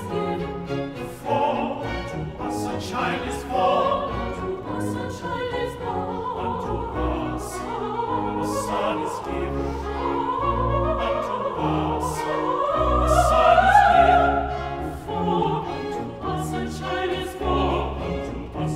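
Classical music under the credits: a sung vocal line over an orchestral accompaniment with sustained bass notes.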